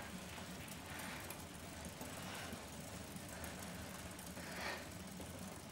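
Road bicycles pedalled on stationary trainers: a steady low whir, with a few faint breaths over it.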